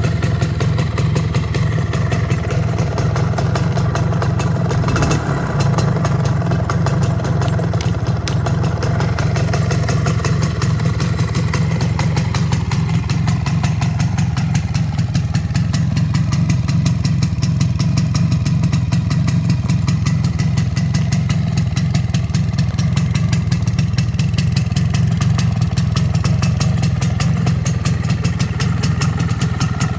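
MZ ETZ 150's single-cylinder two-stroke engine idling steadily, freshly rebuilt with new bearings, crankshaft, a rebored cylinder and a new piston.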